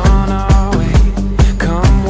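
Background music with a steady beat, about two beats a second, under a sustained melody.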